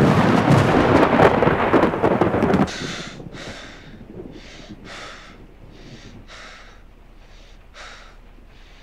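A loud rumbling burst that cuts off abruptly after about two and a half seconds, then a man breathing quickly and heavily, as on waking from a nightmare.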